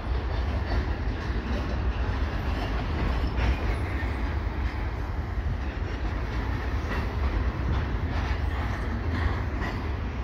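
Double-stack container well cars of a freight train rolling past, the wheels clicking over the rail joints, with wind rumbling on the microphone.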